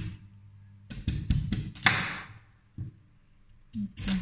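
Kitchen utensils knocking and tapping: a sharp knock at the start, a quick cluster of knocks about a second in, then a longer scraping sound about two seconds in, over a low steady hum.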